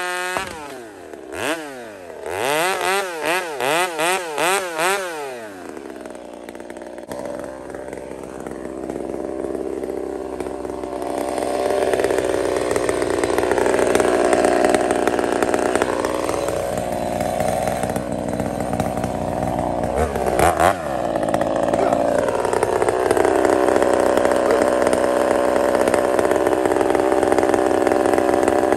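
Gas chainsaw cutting through a large fallen conifer log, running steadily under load and growing louder after the first ten seconds or so. In the first few seconds its pitch rises and falls quickly several times.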